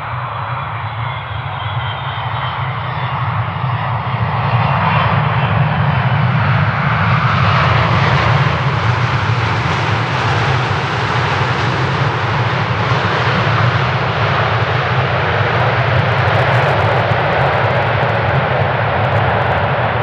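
Boeing 777-300ER's two GE90 turbofans heard on a landing: the jet noise builds over the first few seconds into a loud, steady rush with a strong low rumble underneath.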